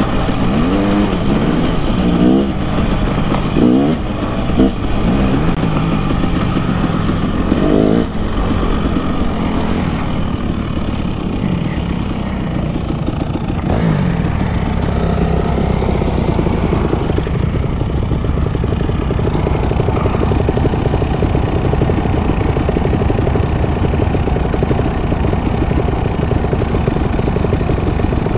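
Dirt bike engine running while riding. Its pitch rises and falls with the throttle several times in the first fifteen seconds or so, then it runs more steadily.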